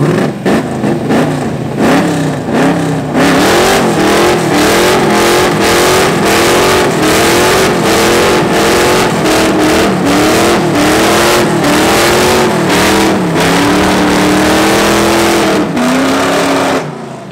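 First-generation Chevrolet Camaro doing a burnout: the engine revs up and down over and over while the spinning rear tyres screech. Near the end the revs drop and hold briefly before the sound cuts off.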